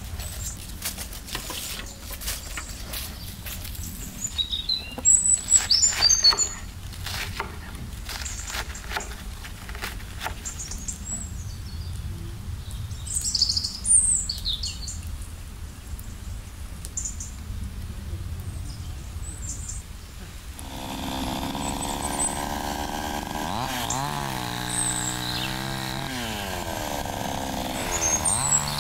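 Small birds chirping outdoors, with scattered light knocks in the first part. About two-thirds of the way through, a petrol chainsaw's two-stroke engine starts running; it revs up and down and then runs steadily at speed.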